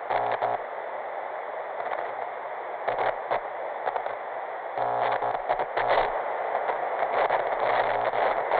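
Hiss of TV static with irregular crackles and glitchy bursts, growing louder about halfway through.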